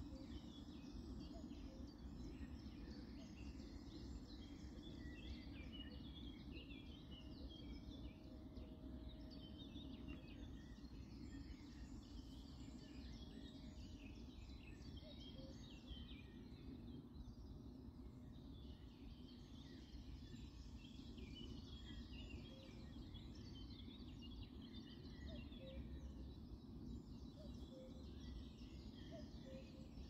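Faint chorus of many small birds chirping and singing, over a steady low background rumble.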